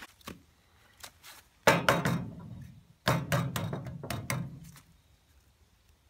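Two short bursts of knocking and rustling handling noise, about two seconds in and again a second later, each starting with a sharp knock.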